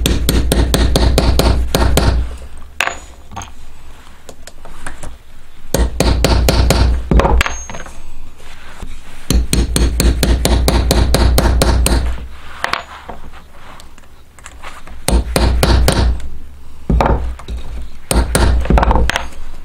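Small hammer driving a steel leather punch through a leather strap onto a steel plate on a wooden bench: five quick runs of rapid taps, each lasting a second or two, with short pauses between them.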